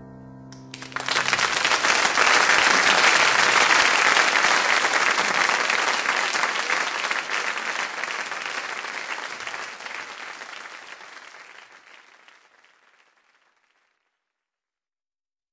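Audience applause breaking out about a second in as the last piano chord rings away, then slowly fading out near the end.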